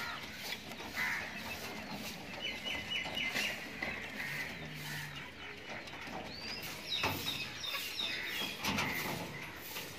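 Birds chirping in short, quick runs of repeated high notes around a pigeon aviary, with scattered sharp knocks and clicks.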